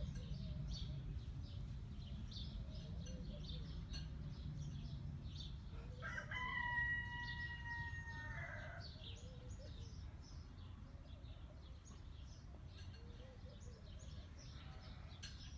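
A rooster crowing once, a long, level call about six seconds in lasting over two seconds, with small birds chirping repeatedly throughout and a low rumble underneath.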